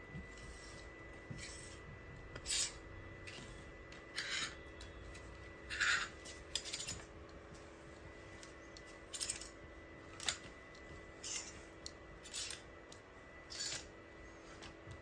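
Clothes hangers scraping and clicking along a metal rail as garments are pushed aside one at a time, with fabric rustling; about nine short scrapes, roughly a second apart.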